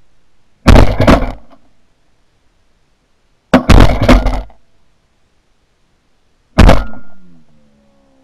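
Three shotgun blasts about three seconds apart, each dying away over about a second: shots at a dove in flight, all three of them misses.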